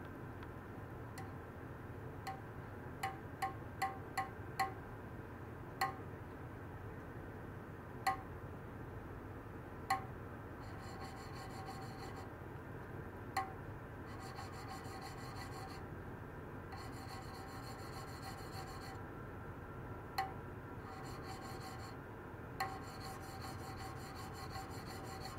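Ultrasonic oscillator driving wire probes in a stainless-steel tray of water: a steady low hiss with sharp metallic pings that ring at a few fixed pitches, irregularly spaced and most frequent in the first five seconds. From about ten seconds in, a high buzzing comes and goes in stretches of a second or two.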